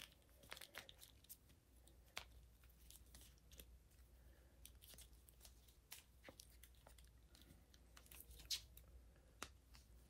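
Near silence with faint, scattered clicks and rustles of a plastic action figure being handled and posed, its arms and plastic wings moved in the hands.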